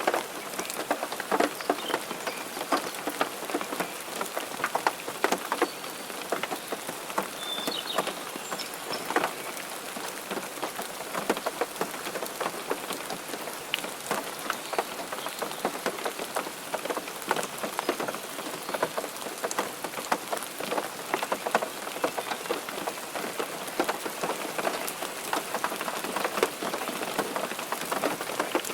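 Steady rain falling, an even hiss with many separate drops heard as sharp ticks throughout.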